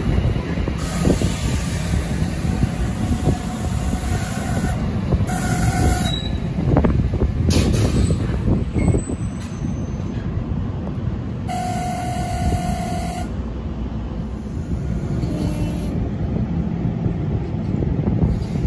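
NJ Transit multilevel passenger coaches passing at speed: a steady rumble and clatter of steel wheels on the rails. A short, higher-pitched squeal comes about twelve seconds in.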